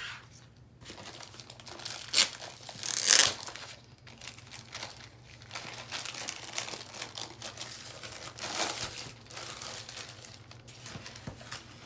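Clear plastic wrap crinkling and rustling as it is pulled off a rolled canvas, in irregular bursts, the loudest about two and three seconds in and another near nine seconds.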